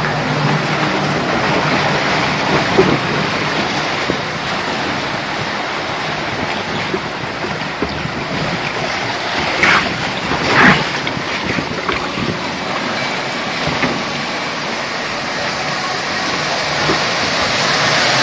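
Rushing water of a log flume ride as a log boat floats along the fiberglass water trough, a steady wash of water noise with a few brief louder moments, the strongest about ten seconds in.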